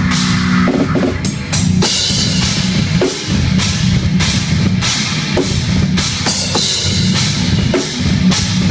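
Drum kit played hard in a fast rock or metal groove, with bass drum, snare hits and cymbal crashes, along with a recorded band track of sustained distorted guitars and bass.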